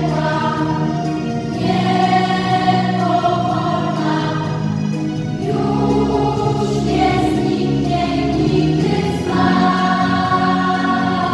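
Children's school choir singing, with notes held for a second or two each.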